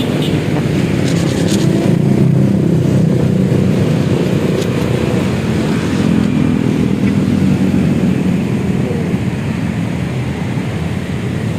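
Road traffic going past: a steady motor-vehicle rumble that swells a little about two seconds in and again around six to seven seconds.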